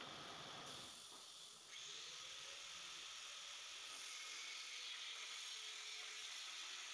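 CNC plasma cutter's torch hissing as it cuts steel plate: a steady high hiss starts about two seconds in and holds.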